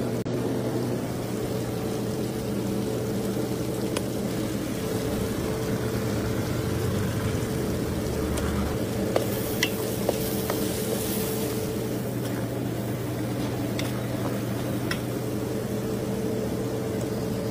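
Chopped onion and tomato masala frying in oil in a large pan: a steady sizzle over a low hum, with a few light clicks of a spoon against the pan. About nine seconds in, the hiss brightens for a few seconds as salt and ground spices are sprinkled in.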